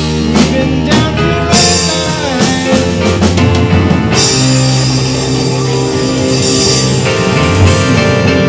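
Live rock band playing loudly: drum kit, electric guitars, bass guitar and keyboard, with cymbal crashes about one and a half seconds in and again about four seconds in, and notes sliding in pitch in between.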